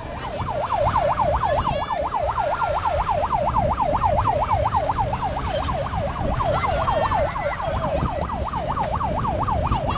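Police car siren in a fast yelp, its pitch swinging rapidly up and down about four times a second.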